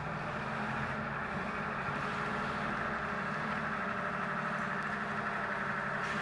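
M548 tracked carrier's General Motors 6V53 two-stroke V6 diesel running steadily at low revs as the vehicle creeps forward on its tracks.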